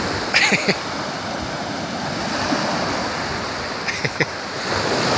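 Small waves washing and breaking onto a sandy lakeshore in a steady rush. Two short, brief sounds cut in, about half a second in and again around four seconds in.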